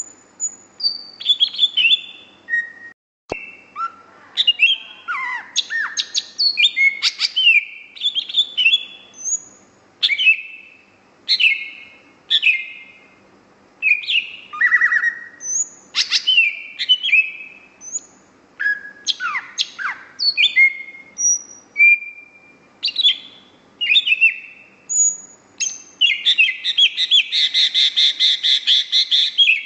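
Greater green leafbird (cucak hijau) singing vigorously and without pause: a varied run of short, loud whistled phrases and quick downward sweeps, breaking into a fast rattling trill near the end.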